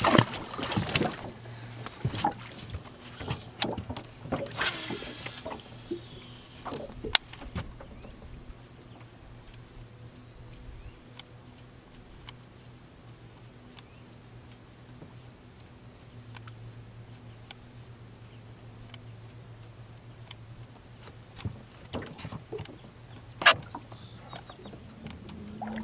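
Casting and retrieving from a small fishing boat: a swish of the cast right at the start and another a few seconds in, then a low steady hum from the boat's electric trolling motor. Scattered small clicks and knocks come from the baitcasting reel and rod, with a sharp knock about seven seconds in and another near the end.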